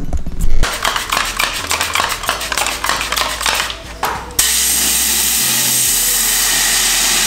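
A quick run of clicks and knocks, then a loud steady hiss that starts suddenly about four seconds in.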